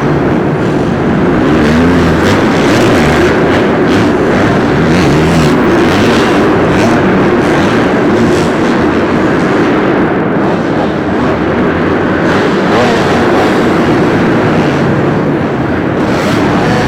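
Motocross dirt bike engines revving on a supercross track, the pitch rising and falling as riders work the throttle.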